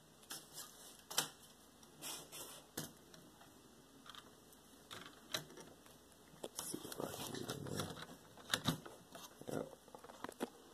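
Faint handling noise: scattered light clicks and taps, with a soft rustling stretch about seven seconds in.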